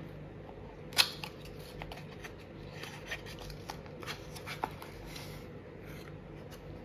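Small cardboard advent box being opened and handled: a sharp click about a second in, then light clicks, scrapes and paper rustling as the contents are lifted out.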